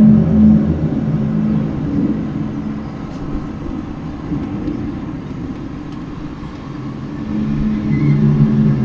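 Unexplained low droning hum heard outdoors, several steady deep tones sounding together like a distant horn or groan. It fades to a rumble about two seconds in and swells back near the end. It is one of the 'strange sounds' that the recorder says has been recurring every ten minutes to half an hour.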